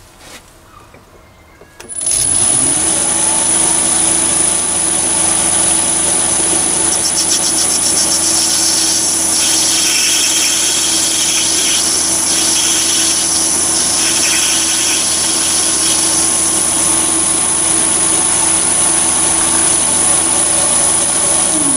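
Chinese mini lathe switched on about two seconds in, its motor running steadily with a constant high-pitched whine and a low hum. Through the middle the grooving tool cuts an O-ring groove in the spinning brass piston, adding a hissy cutting sound, and the motor winds down right at the end.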